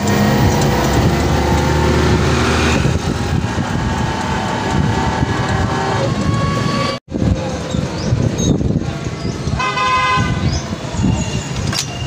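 Busy street traffic of motorbikes and auto-rickshaws, with a vehicle horn honking about ten seconds in.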